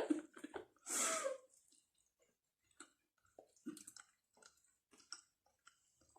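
Faint, scattered wet mouth clicks and smacks of someone chewing sauced hot wings, with a short vocal sound about a second in.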